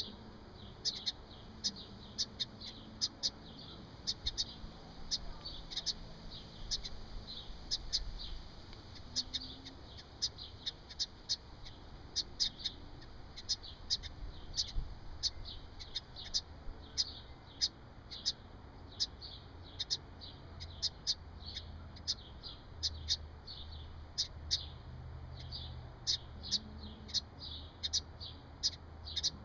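A wren's alarm calls: short, sharp notes repeated about two to three times a second in a long, steady series, scolding an intruder near its nest box.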